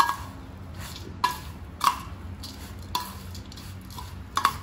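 Metal spoon stirring a dry stuffing of sev, chopped onion, tomato and coriander in a stainless steel bowl, scraping through the mix and clinking against the bowl's side about five times.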